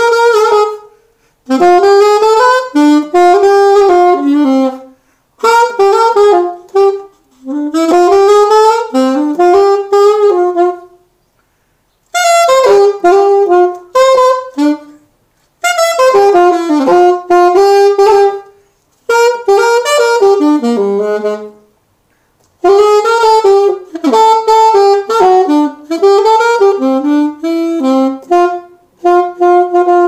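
A solo wind instrument playing a slow melody in phrases a few seconds long, each followed by a short break of silence.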